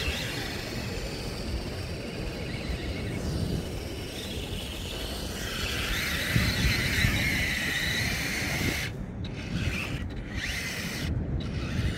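Radio-controlled model car running over rough ground, with mechanical rubbing and rattling. A higher motor whine swells in about halfway through and cuts in and out near the end.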